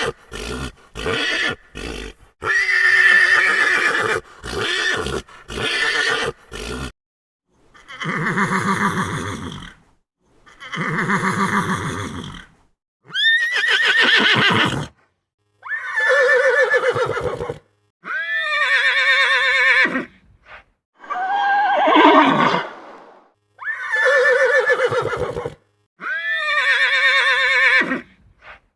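Horse neighing over and over. A quick run of short calls comes in the first seven seconds, then about eight long whinnies of roughly two seconds each with short pauses between, several of them falling in pitch.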